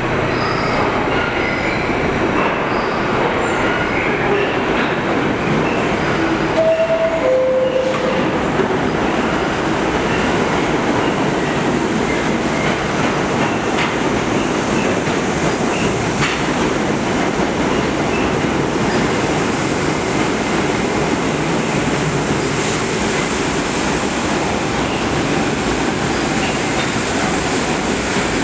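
New York City subway R68A train noise, steady and loud, echoing in an underground station. About six and a half seconds in, the train's two-note descending door chime sounds once.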